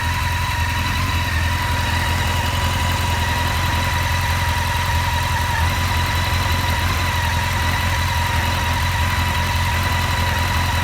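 Honda CBR600F4i inline-four engine idling steadily, with a constant high whine over the idle. It is the noise that comes from the clutch while the lever is released and stops when it is pulled in; the owner suspects a worn clutch basket.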